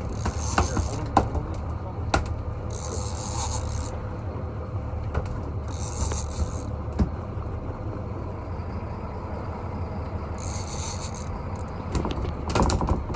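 Big conventional fishing reel rasping in about five separate bursts of roughly a second each, as line is worked against the reel, over a steady low rumble.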